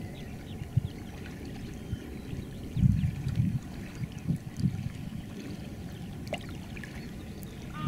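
Water sloshing and swishing around a person wading waist-deep and sweeping his arms through muddy floodwater, with low rumbling bumps that are strongest around three seconds in. Faint high chirps sound here and there, and a short tonal call comes at the very end.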